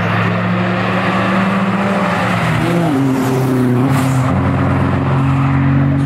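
Two competition cars, a white sports car and a blue Subaru Impreza rally car with its flat-four engine, driving up past under hard acceleration. The engines are loud, and their pitch drops and climbs again with gear changes about two and a half and four seconds in.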